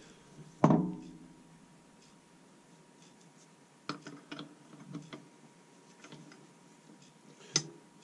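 Metal parts of an old cast-iron vise being handled: a loud, ringing metal knock about half a second in, then a few light clicks and knocks as the freshly oiled toothed cam is set back into the vise body, and a sharp click near the end.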